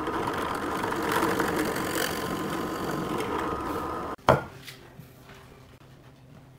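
A power tool running steadily, cutting off abruptly about four seconds in, followed at once by a single sharp knock.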